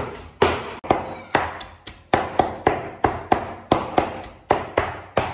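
Chinese cleaver chopping fresh purslane greens on a wooden cutting board: a steady run of sharp knocks, about three to four a second.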